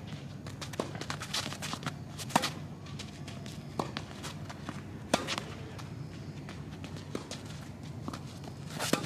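Tennis rally: a racket strikes the ball three times with sharp pops a few seconds apart, the last near the end, with softer ball bounces and shoe scuffs on the court between them, over a steady low hum.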